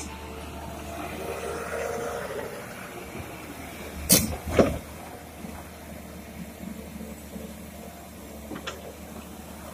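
Komatsu PC200-6 hydraulic excavator's diesel engine running steadily at a low level, with two sharp knocks about four seconds in, half a second apart, and a fainter one near the end.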